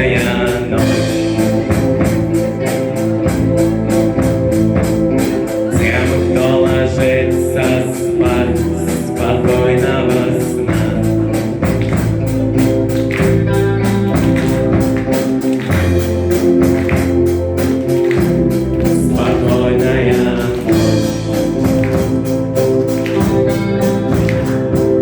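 A vocal-instrumental ensemble playing a song live: singing over band accompaniment with a steady beat.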